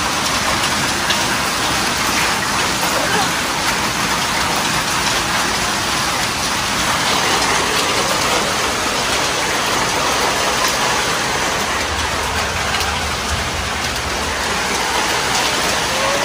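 Heavy rain pouring steadily onto rooftops: a dense, even hiss of downpour.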